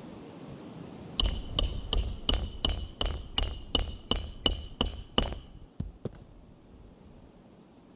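Hammer striking about a dozen quick, evenly spaced ringing blows, about three a second, followed by two light taps.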